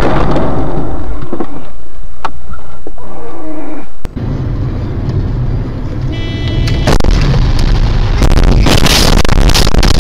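Dashcam audio of a car crash. The first few seconds are loud, distorted noise with a few sharp knocks. After a cut there is road and engine noise, a brief high tone about six and a half seconds in, then a loud collision from about seven seconds in that leaves the windscreen shattered, with heavy impact noise and many cracks and knocks.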